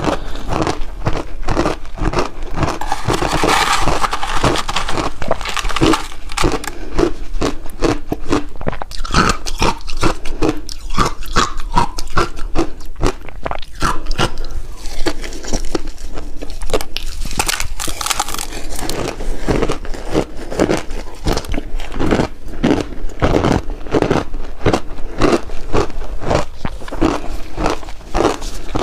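Close-up crunching of refrozen shaved ice being bitten and chewed, in a rapid, uneven run of crisp crunches that keeps on without a break.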